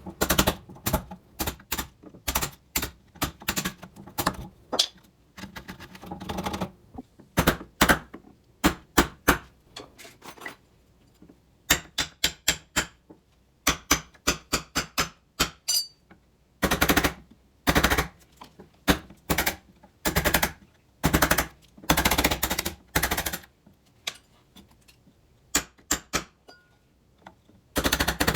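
Sharp knocks in quick, uneven runs from hand tools working wood, with short pauses between runs and a few dense, rapid flurries.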